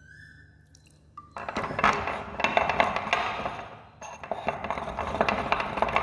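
Ceramic pestle grinding wet fungal mycelium against a porcelain mortar: a gritty scraping and grinding that starts a little over a second in. It breaks off briefly about four seconds in, then carries on.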